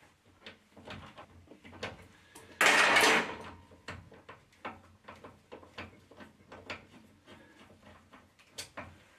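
Plastic wiring connectors being unclipped and pulled from a Citroën C1's steering-lock assembly: a run of small clicks and rattles, with one louder rustling scrape about two and a half seconds in.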